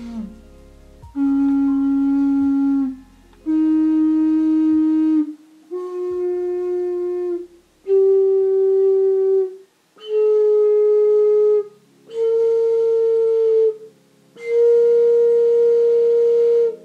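A seashell-shaped, low-pitched clay ocarina playing its scale upward: seven held notes of about a second and a half each, climbing step by step with short breaths between them. The handmade instrument is not tuned to exact pitch, so the scale is its own.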